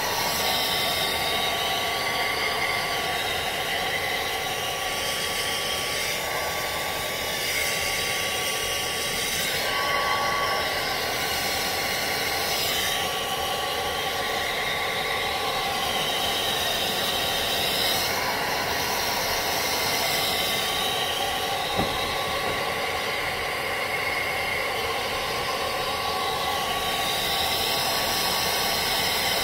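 Handheld hair dryer blowing steadily, a continuous rush of air over a thin steady whine, its tone shifting slowly as it is moved around a wig cap to dry hair spritz.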